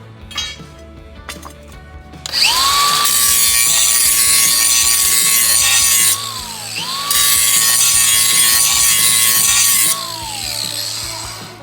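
Electric power tool run twice, for about four seconds and then about three, its motor whine rising as it spins up and falling as it winds down each time. Background music plays underneath.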